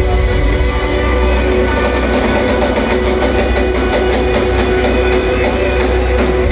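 Loud live band music filling a concert hall, with heavy bass and held instrumental tones.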